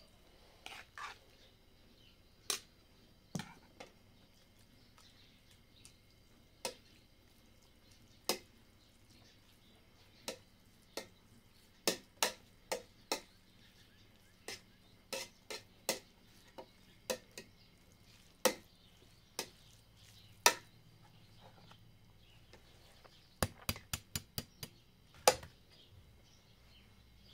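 Metal utensils clinking and knocking against stainless-steel cooking pots as cooked spaghetti is tipped in and stirred: sharp, irregular clinks with pauses between them, and a quick run of several clinks near the end.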